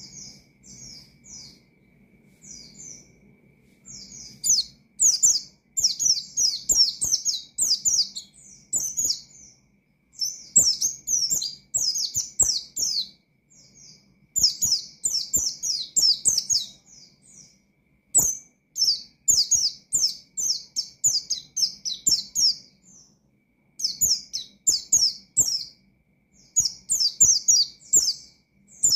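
White-eye (pleci) singing in its rapid, wild-style song: quick runs of high, downward-sliding chirping notes in bursts of a second or more, separated by short pauses.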